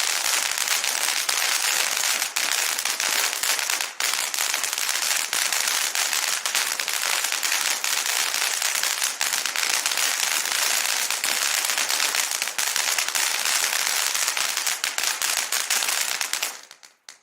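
Vulcan 'Popcorn Fountain' firework fountain burning with a dense, continuous crackle of many small pops over a hiss, then dying out near the end.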